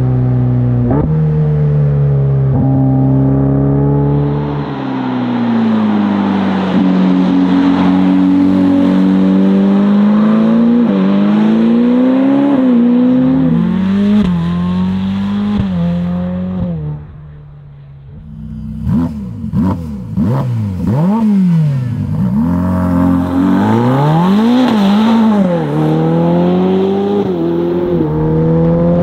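Ferrari F8 N-Largo's twin-turbo V8 through a Novitec exhaust, pulling hard with the revs climbing and dropping back several times. A little past halfway it fades briefly, then comes back with a few sharp cracks and quick rises and falls in pitch before settling into a steady run.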